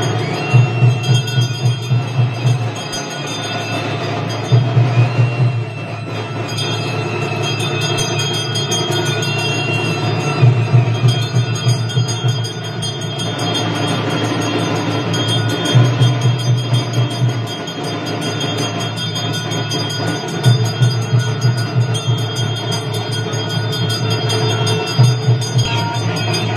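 Temple wedding band music: a reed pipe plays long held notes while a drum breaks in with bursts of rapid, loud beats every five seconds or so, the kind of drumming that marks the tying of the mangalasutra.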